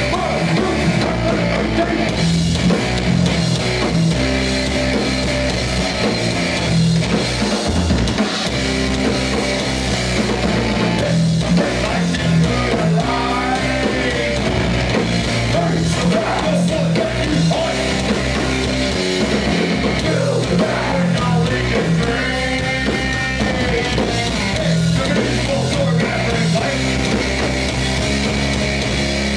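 Hardcore band playing live: distorted electric guitars, bass and drum kit at full volume.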